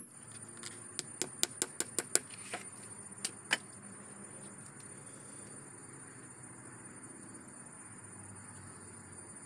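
A quick run of about ten sharp clicks and taps in the first few seconds, then only a faint steady high insect buzz.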